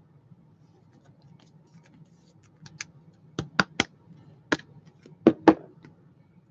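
About eight sharp clicks and taps in a loose cluster, starting about three seconds in, with the loudest pair near the end, over faint room hum.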